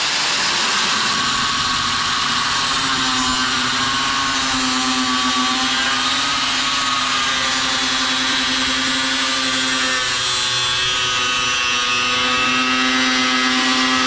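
Angle grinder with a cutoff wheel cutting through metal: a steady high motor whine over the hiss of the wheel in the metal, the pitch sagging a little at times as the cut loads it. It is switched off and winds down right at the end.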